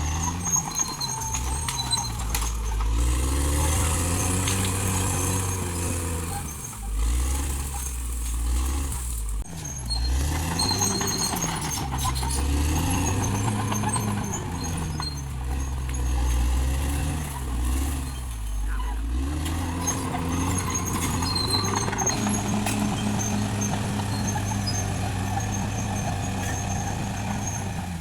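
Caterpillar D6R XL bulldozer's diesel engine working under load, its pitch dipping and rising again and again as the revs change, with scattered metallic knocks and clanks from the machine.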